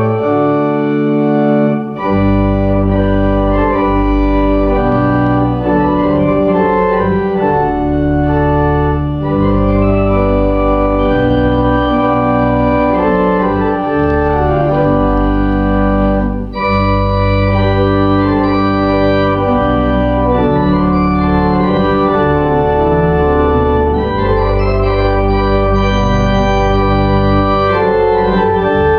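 Church organ playing slow, sustained chords, with a deep bass line coming in about two seconds in and brief breaks between phrases around two and sixteen seconds in.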